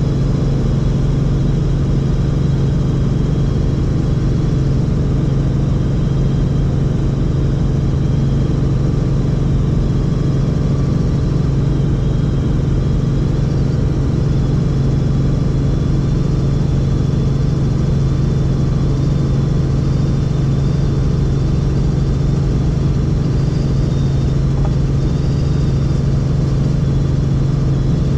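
Helicopter in flight: a steady, loud drone of engine and rotor with a strong low hum and a fast, even flutter from the blades.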